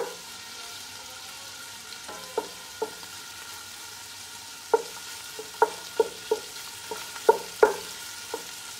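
Sausage sizzling as it sautés in a pot with rendered pancetta fat. A spoon stirring it knocks against the pot about ten times, each knock short and ringing, most of them in the second half.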